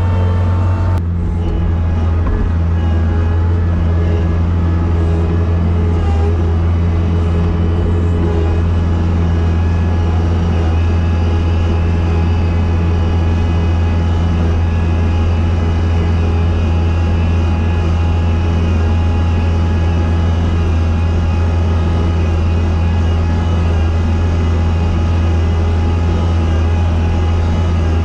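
Engine of a sidewalk snow-plowing machine running steadily as it pushes snow, a low even drone heard from inside its cab.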